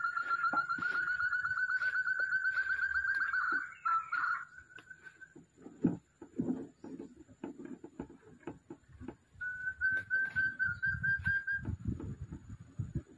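Forest quail call: a rapid trill of whistled notes that runs for nearly four seconds, then a short burst, and a second, slightly rising trill about ten seconds in. Rustling and soft knocks fill the gap between the trills.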